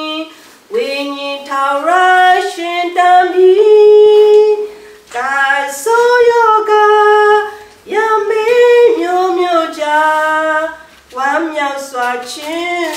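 A woman singing solo and unaccompanied, in phrases with long held notes and short pauses for breath between them.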